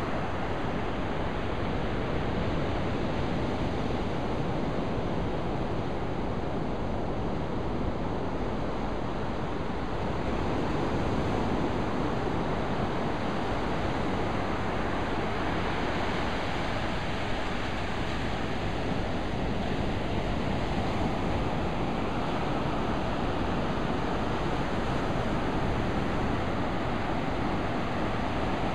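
Ocean surf breaking and washing up a sandy beach in a steady, unbroken rush, with a low rumble of wind on the microphone.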